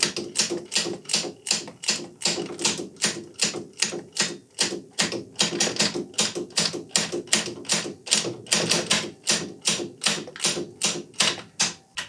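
Ratchet wrench clicking in a steady, even rhythm, about three to four sharp clicks a second, as a bolt is worked loose.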